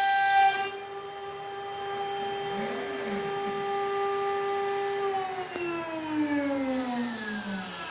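CNC router spindle whining at a steady high pitch, loud and bright for the first moment, then quieter once the cutting stops. About five seconds in the spindle spins down, its pitch falling steadily. Near the middle a short whirr rises and falls.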